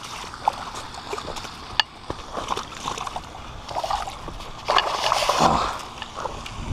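Dry twigs and leaves crackling, with rubbing on a body-worn camera, as an angler scrambles down a brushy bank fighting a hooked fish; a louder rush of noise, like a splash, comes about five seconds in.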